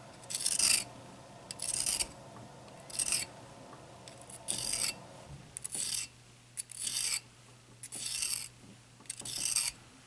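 Serrated steel edge of a Gerber pocket knife being honed on the tapered diamond rod of a Smith's Pocket Pal sharpener: eight short, high-pitched rasping strokes, about one a second, as the rod is twisted along the serrations to knock off burrs and gouges.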